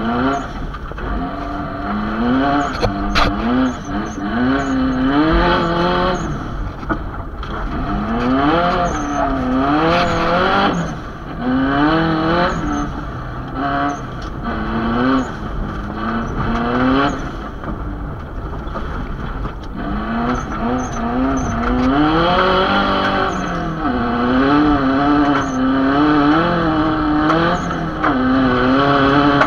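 Subaru Impreza GC's flat-four engine heard from inside the cabin at racing pace, its revs climbing and dropping again and again through gear changes and lifts, over a steady noise of tyres on snow.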